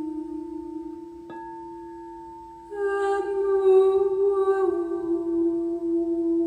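Singing bowl ringing with a steady tone, struck again about a second in. From about halfway a voice hums a long, slightly wavering note over it that slides down to settle on the bowl's pitch.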